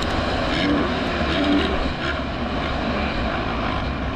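Motocross motorcycles racing, their engines revving up and down in pitch as they accelerate.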